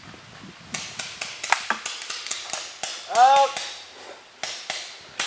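Paintball markers firing: a rapid, uneven run of sharp pops, several a second, starting about a second in, with one loud shout a little past the middle.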